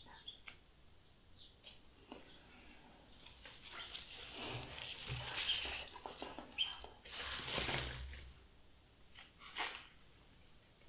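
Dried grass stems rustling and crackling against newspaper as a gloved hand sorts through them, in two longer stretches, with a few light clicks.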